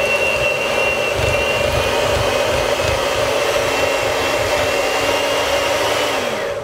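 Electric hand mixer running at a steady speed, its beaters whisking a cream cheese and condensed milk mixture, with a steady motor hum and a high whine. Near the end it is switched off and the pitch falls away.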